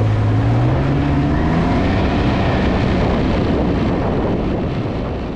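Can-Am Ryker Rally's Rotax 900 cc three-cylinder engine accelerating through its Akrapovič silencer, the deep exhaust note rising in pitch over the first second or two, then running steadily as the trike gathers speed. The sound fades away near the end.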